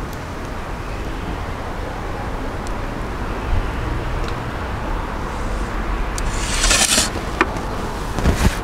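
A steady low outdoor rumble, with a few faint clicks from the wood fire crackling in the pizza oven. About six seconds in comes a brief, loud scraping hiss.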